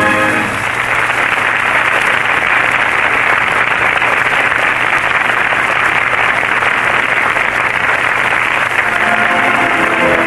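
Studio audience applauding steadily on an old, muffled broadcast recording. An orchestra chord ends about half a second in, and the orchestra starts playing again near the end.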